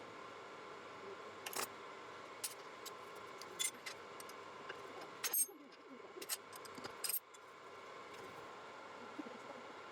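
Several sharp metallic clicks and clinks of small metal parts and tools being handled, over a steady hum. The hum drops away briefly between about five and seven seconds in.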